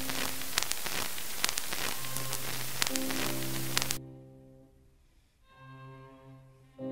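Background music with bowed strings, overlaid for the first four seconds by a crackling hiss with sharp clicks that cuts off suddenly. The music then sinks low and swells back up near the end.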